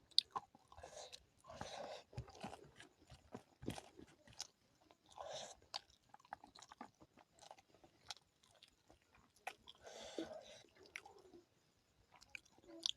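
Close-miked eating: a person chewing and biting food, with wet mouth sounds broken by many short, sharp crunching clicks at an uneven pace.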